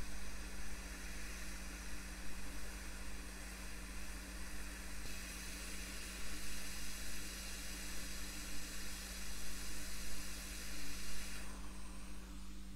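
Quick 861DW hot air rework station blowing a steady hiss of hot air onto a circuit board to desolder a dead surface-mount regulator chip. The hiss grows stronger about five seconds in and cuts off shortly before the end, as the chip comes free.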